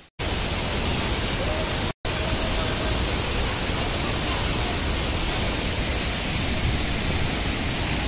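Steady rushing of the small Thoseghar waterfall pouring into its plunge pool, an even wall of water noise. It drops to silence for a split second twice, right at the start and again about two seconds in.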